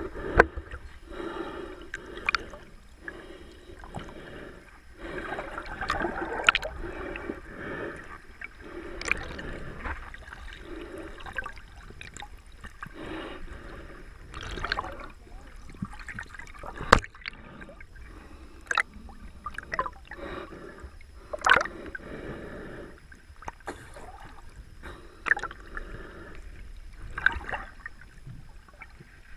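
Muffled water sound heard from a camera underwater: gurgling and sloshing, broken by irregular sharp clicks and knocks.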